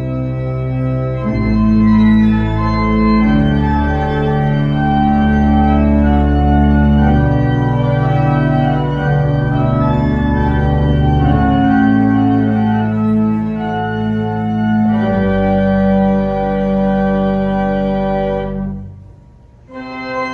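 Background music of slow, held organ-like chords that change every second or few, dipping briefly shortly before the end.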